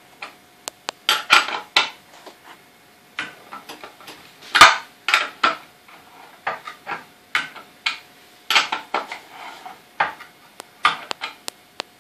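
A half-inch wrench clinking and scraping on a metal nut and bolt set through the wooden frame of a Hitchhiker spinning wheel as the nut is worked loose: irregular metallic clicks and clanks, the loudest a little under five seconds in.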